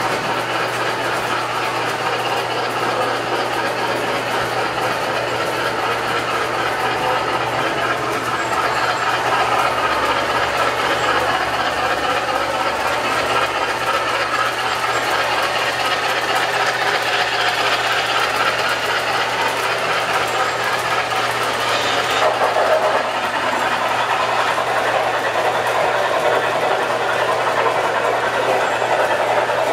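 O-gauge model trains running on a layout: a steady rolling rumble of metal wheels and motors on the track, with a steady low hum underneath. A brief, sharper sound rises above it about two-thirds of the way through.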